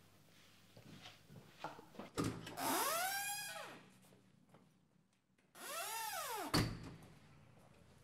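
Door hinges squeaking twice, each a long creak that rises and falls in pitch: the door swinging open, then swinging shut and closing with a knock about two thirds of the way in.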